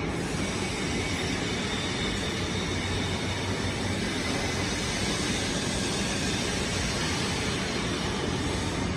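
Steady, even machinery noise from a PE breathable film production line in a factory hall: the line's motors and blower fans running, with no separate knocks or changes.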